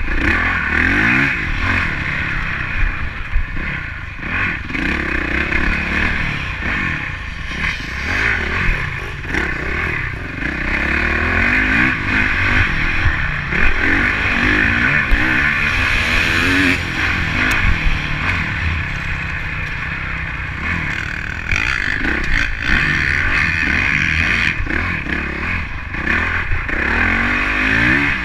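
Honda CRF motocross bike's single-cylinder four-stroke engine at race pace, heard from a camera on the rider, its pitch rising and falling again and again as it accelerates hard and shifts through the gears.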